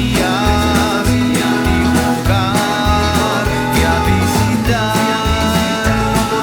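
Bouncy country-style song music with guitar and a steady, repeating bass line.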